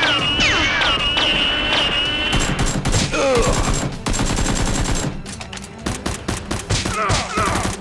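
Rapid automatic gunfire sound effects: a dense volley of shots with whining, falling sweeps over it in the first couple of seconds. About five seconds in it thins to quieter, separate quick shots.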